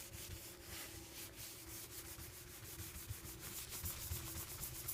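A folded paper towel damp with degreaser being scrubbed back and forth over a MacBook's case, a steady rubbing hiss made up of repeated wiping strokes.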